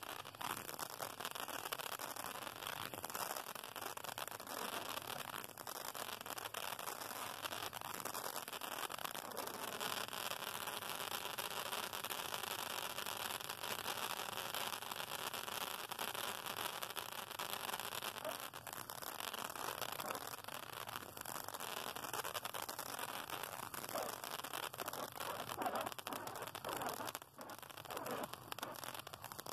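TNT Glow Saber handheld fireworks sword burning: a steady rushing, crackling spray of sparks that stops abruptly at the end.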